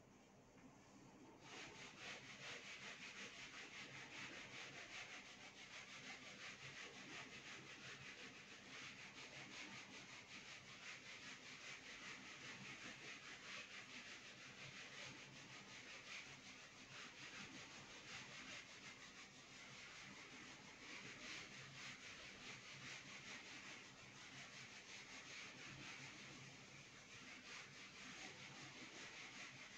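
Whiteboard duster rubbing back and forth across a whiteboard, erasing marker writing: a faint, continuous rubbing that starts about a second and a half in.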